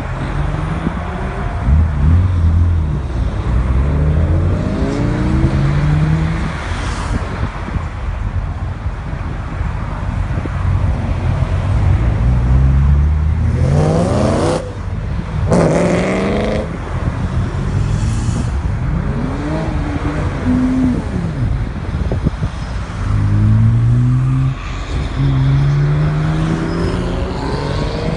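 A line of cars, mostly BMWs, driving past one after another, engines rising in pitch as each accelerates by, over tyre rumble. About halfway through one car revs harder and louder than the rest as it passes.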